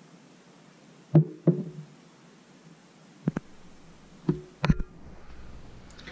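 A glass jar knocking against a wooden tabletop about five times as it is handled and shifted. The knocks are sharp and short, some with a brief ring.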